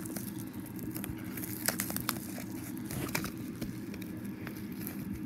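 Hands working at DVD packaging: scattered crackles, clicks and rustles of the wrapping being handled and pulled at, over a steady low rumble.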